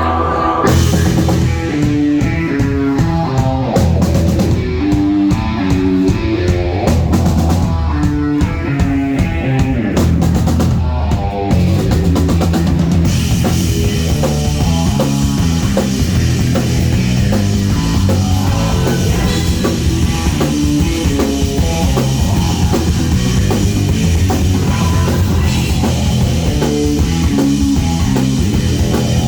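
Rock band playing live, with drum kit, bass drum and snare driving a moving bass line. About thirteen seconds in, the sound fills out and gets brighter and denser to the end.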